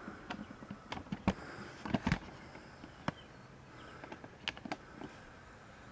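A handful of light, scattered clicks and knocks of handling over faint room tone, the loudest around two seconds in.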